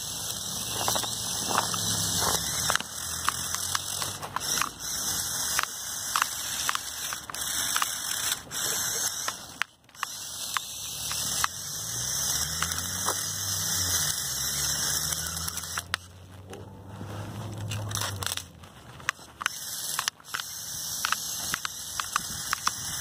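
Lego Technic RC snowmobile driven by two buggy motors through planetary hubs: the motors and gears whine, rising and falling in pitch as it speeds up and slows. Its plastic tracks clatter and crunch through the snow. The sound drops out briefly about ten seconds in.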